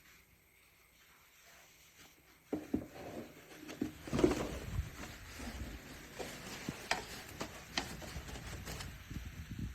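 Quiet irregular rustling and clicks, like objects being handled, starting about two and a half seconds in.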